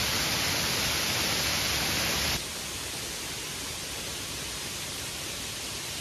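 Steady rush of stream water pouring over a small cascade. About two and a half seconds in, it cuts abruptly to a quieter, steady background rush.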